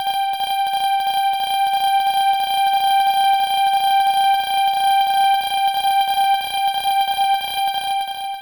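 Railroad crossing warning alarm sounding: a steady, buzzer-like high tone with rapid even clicking, about five clicks a second.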